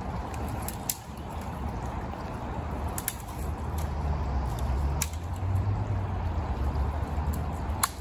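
Shallow creek water running steadily over its bed, with a low rumble that gets stronger in the second half. Four sharp clicks come a second or two apart.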